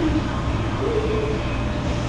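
Steady low hum and rush of commercial kitchen ventilation, the exhaust hood fans running.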